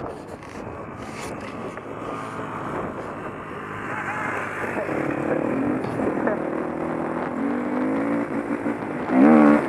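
Dirt bike engine running, picked up by a helmet-mounted camera, with a noisy rush at first and a clearer engine note from about halfway. Near the end it revs up with rising pitch, the loudest moment.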